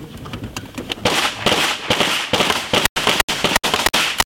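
Rapid handgun fire from several shooters at once, a dense string of overlapping shots, some fired from inside a car's cabin.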